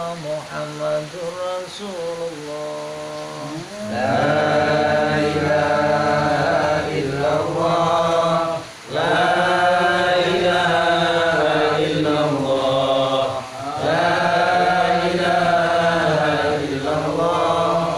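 A group of men chanting Islamic dhikr together in long, drawn-out phrases. The chanting is quieter for the first four seconds, then swells louder and fuller, with short pauses for breath about nine and thirteen seconds in.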